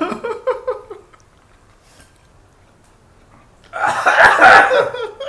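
Two men laughing loudly together from about four seconds in, after a brief vocal sound at the start and a quiet stretch in between.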